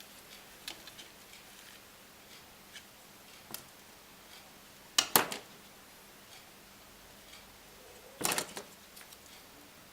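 Small hand tools and tiny phone parts clicking and tapping on a work surface during an iPhone 5 screen repair. A few faint ticks, then a sharp double click about halfway through and a short cluster of clicks near the end.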